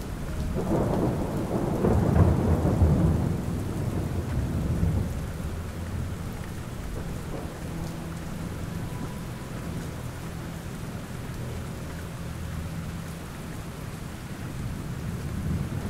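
Steady rainfall with a long roll of thunder that swells about half a second in, peaks a couple of seconds later and rumbles away over the next few seconds.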